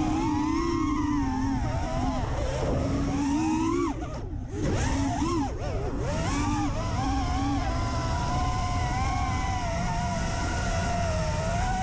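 FPV quadcopter's brushless motors and propellers whining, the pitch rising and falling with the throttle, with a short drop about four seconds in as the throttle is pulled back.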